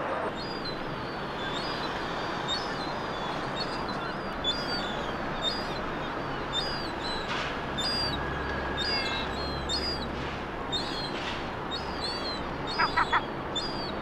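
Gulls calling: a high, thin call repeated about once a second, typical of young gulls begging, over a steady background hiss. Three short, louder calls come close together near the end.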